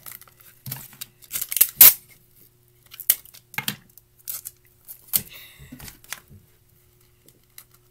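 Paper and sticky tape being handled and torn: a string of irregular rips, crinkles and clicks, the loudest rip about two seconds in.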